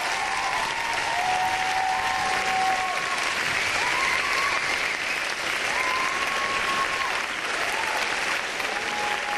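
Audience applauding steadily after the performance, with a few long held calls ringing out over the clapping.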